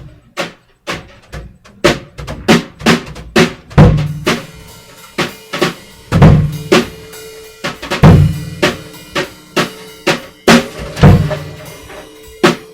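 Mini drum kit played with wire brushes in a steady groove. Brush strokes on the snare and cymbals run throughout, with heavier bass drum kicks among them.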